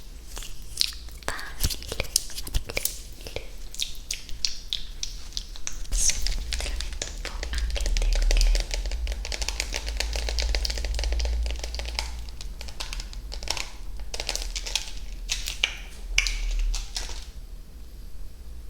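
Close-miked ASMR triggers: a dense run of quick clicks and crackles over a hissy scratching rustle, with a deep rumble like handling of the microphone from about 6 to 12 seconds in.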